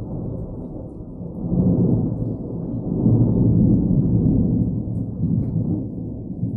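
Thunder rumbling low and long, swelling louder twice.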